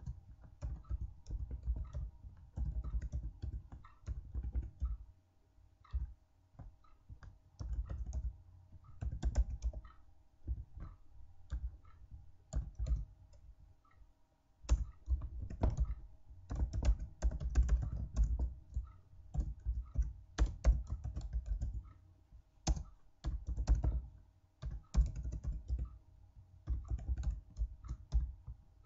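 Typing on a computer keyboard: keys clicking in irregular bursts with short pauses between them, over a faint steady hum.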